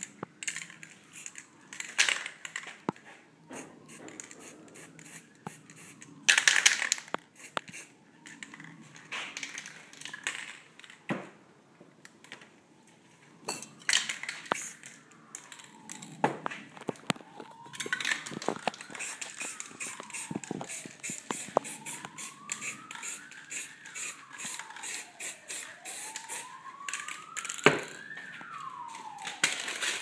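Paper crackling and rustling as it is crumpled, pressed onto the wet spray paint and peeled off, with a few short hissing bursts from a spray-paint can. Behind it a siren wails up and down, clearer in the second half.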